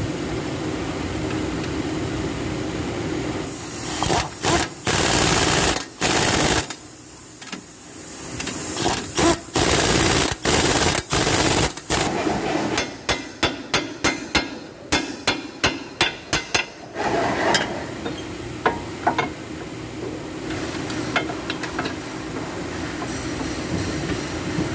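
Pneumatic impact wrench run in bursts to drive in bolts: several longer runs, then a quick string of short bursts about three a second and a few single ones near the end. A steady hum runs underneath.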